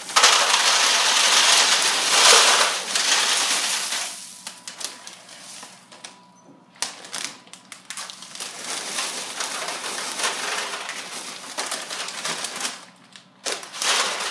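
Tiny twist pretzels poured from their plastic bags into a disposable aluminium foil pan, a dense rattling rush. It is loud for the first few seconds, then a second, quieter pour runs through the middle, and there is a short clatter near the end.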